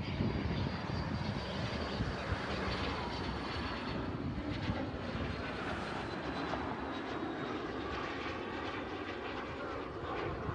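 Engine of a small airplane flying past, a steady drone.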